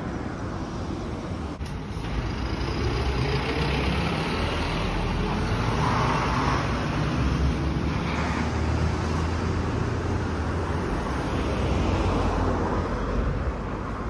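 Storm wind buffeting the phone's microphone, mixed with street traffic noise. It is a loud, uneven rumble that swells about two seconds in and eases near the end.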